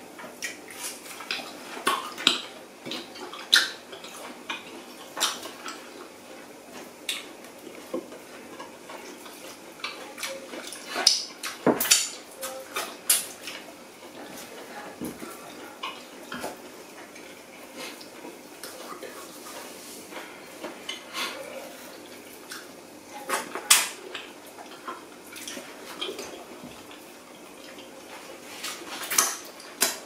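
Eating noises from people eating oxtail stew with their hands: irregular wet smacks and clicks of lips, mouths and licked fingers, with light knocks against the plates. A few smacks stand out louder than the rest.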